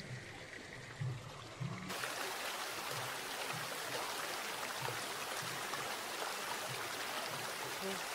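Steady, even rushing noise of outdoor ambience at a pond, starting abruptly about two seconds in.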